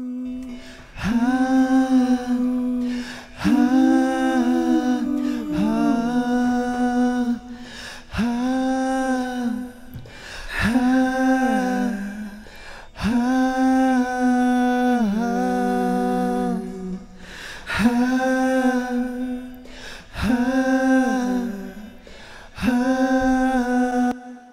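Three stacked vocal tracks singing held notes in harmony, soloed and fed through a chamber reverb plugin (OrilRiver, large chamber preset) on an external send, in phrases of a couple of seconds with short gaps between.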